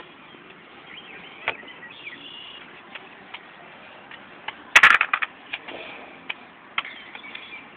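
Toddler playing with toy blocks on a concrete patio: scattered light clicks and scuffs, with a short clatter about five seconds in.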